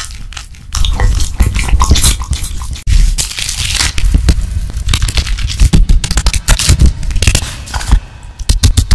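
Close-miked ASMR food-preparation sounds: a spoon scraping and scooping creamy penne in a glass baking dish, then, after a cut about three seconds in, raw bacon slices being pulled apart and laid out on a cutting board. It is full of sharp clicks, knocks and low thuds.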